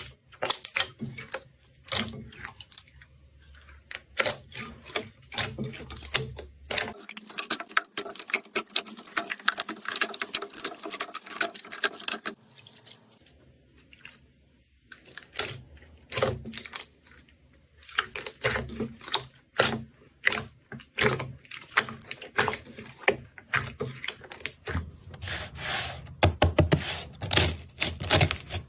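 Slime being squeezed, poked and stretched by hand, making rapid sticky clicks and crackling pops with wet squelching in between. The texture changes several times as different slimes are played with.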